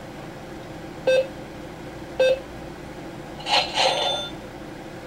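Toy cash register on a Zuru 5 Surprise Mini Brands Mini Mart playset beeping electronically, two short beeps about a second apart, followed by a brief scratchier electronic sound near the end.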